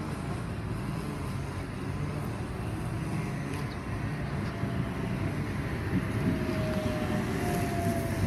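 Four-car Sydney Trains OSCAR (H set) electric train running into the platform, a steady rumble that grows as it nears. From about six seconds in, a whine slowly falls in pitch as the train slows.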